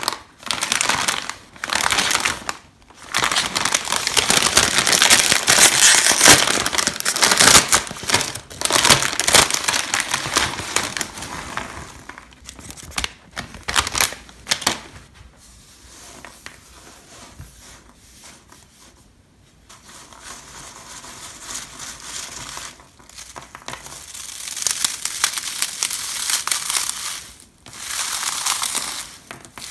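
Plastic snack bag of corn cheese puffs crinkling loudly as it is handled and opened, then the puffs tipped out onto a table. In the last third, handfuls of the cheese puffs crushed and squeezed in both hands, crackling in waves that swell and fade.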